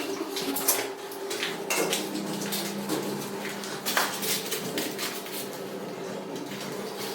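Irregular light clicks and clinks of hard objects being handled, over a steady low hum.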